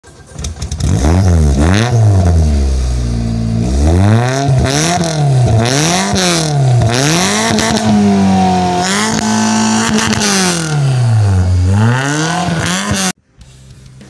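Suzuki Baleno engine revved through a racing exhaust, its pitch rising and falling with each blip of the throttle. The revs are held high for about two seconds around the middle, and the sound cuts off suddenly about a second before the end.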